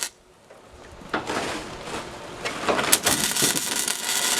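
Stick-welding arc crackling and hissing as holes in steel are filled. The arc stops right at the start, restrikes about a second in with a few sharp pops, and then crackles steadily.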